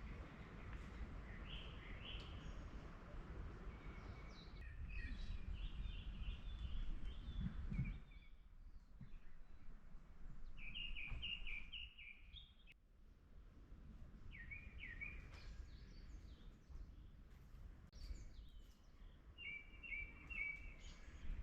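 Songbirds chirping in short phrases of quick, high notes, repeated every few seconds, over a faint low background rumble.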